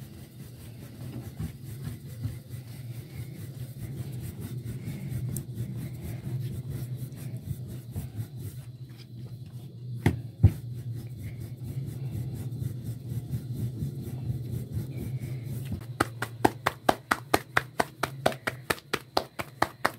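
Wooden rolling pin rolling out paratha dough: a steady low rub as it goes back and forth. About ten seconds in come two sharp slaps as the dough is flipped, and near the end quick regular taps, about three or four a second.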